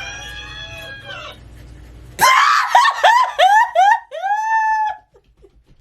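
Shocked human reaction: one drawn-out yelled cry, then loud high-pitched shrieking laughter in quick rising whoops that ends with a longer one about five seconds in.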